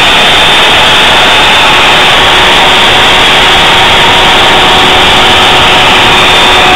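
Router spindle of a home-built Solsylva 3-axis CNC router running steadily at speed while its bit cuts into MDF, carving a 3D relief; a loud, even machine noise with a faint steady whine.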